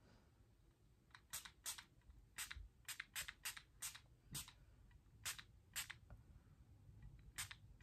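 Catrice Prime and Fine Dewy Glow fixing spray's pump-mist bottle spritzed about a dozen times, each a short, sharp hiss, some in quick pairs.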